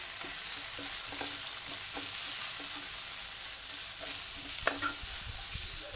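An onion and chilli-powder masala frying in oil in a pan, sizzling steadily while a utensil stirs it, with small scrapes and taps against the pan. One sharper clink comes about two-thirds of the way through.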